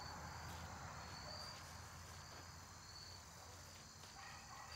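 Faint insects chirping: a short, high chirp repeating about every second and a half over a steady high drone.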